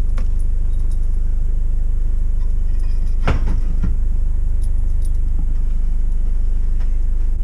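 A motor running with a steady low hum, with a few light clinks over it.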